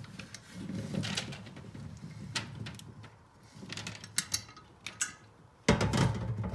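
Brined black olives tumbling out of a metal colander onto a paper-lined tray: an irregular patter of small clicks and paper rustle. Near the end a louder steady low background comes in abruptly.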